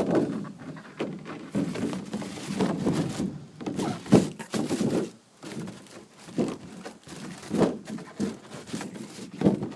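Sneakers and their cardboard shoe boxes being handled: a string of irregular knocks and thuds mixed with crinkling paper.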